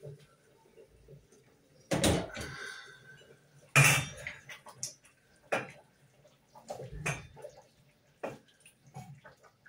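Stainless steel cooking pot and lid clanking: a sharp metal knock about two seconds in and a louder one a couple of seconds later, each ringing briefly, then several lighter knocks as the lid is lifted and handled.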